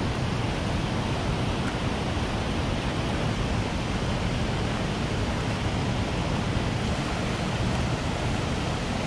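Steady rush of river water pouring over a rocky ledge and weir: an even, unbroken noise.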